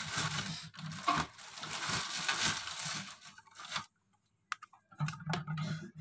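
Thin plastic carry bag rustling and crinkling as it is handled, stopping about four seconds in; then a few sharp clicks and a short burst of rustling near the end.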